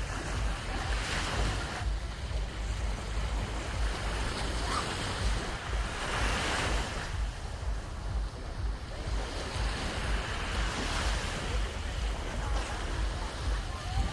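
Sea waves washing onto a beach, the surf swelling about every four to five seconds, with wind buffeting the microphone in a steady low rumble.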